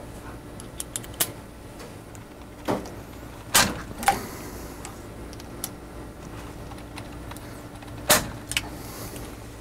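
A hand torque screwdriver tightening the gripper's clamp bolts on a PR2 robot arm: scattered sharp clicks and knocks as the tool is fitted to the bolt heads and turned, the loudest about three and a half seconds in and again near the end, over a steady low hum.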